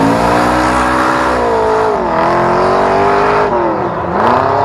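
A hot rod's engine is revving hard at high rpm under heavy throttle. The pitch sags about two seconds in, drops sharply past three and a half seconds, then climbs back up near the end.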